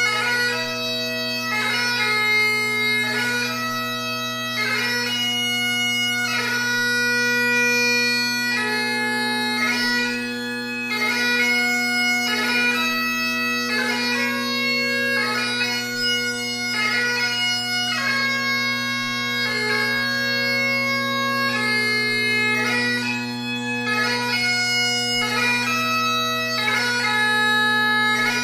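Great Highland bagpipe playing a tune: a melody on the chanter over steady, unbroken drones, the held notes cut by frequent quick grace notes.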